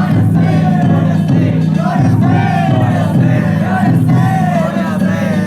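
Danjiri festival crowd chanting and shouting together over festival music, many voices rising and falling throughout.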